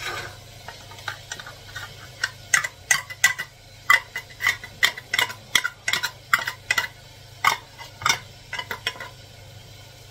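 A metal fork or spoon tapping and scraping against a tin and a dish in a quick, irregular run of clinks as tuna is added to a salad.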